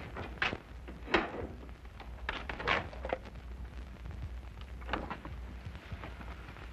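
Door handling and footsteps: about five scattered knocks and clicks over a steady low hum from the soundtrack.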